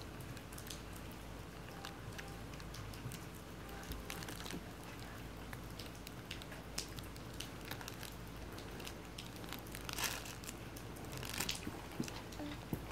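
Baby's fabric crinkle toy crinkling as she grips and mouths it: scattered short crackles, with louder flurries about ten seconds in and again a little after.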